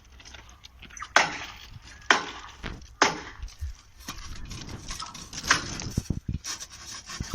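Three sharp knocks about a second apart, then another knock and a run of dull thumps near the end, from hand work on the rail joint being set up for thermite welding.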